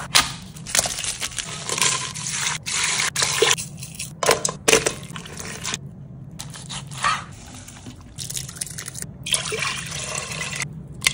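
Kitchen prep sounds in quick succession: a chef's knife cutting dried chiles on a wooden cutting board, wet raw beef being handled, and near the end broth pouring into a stainless steel stockpot, all over a low steady hum.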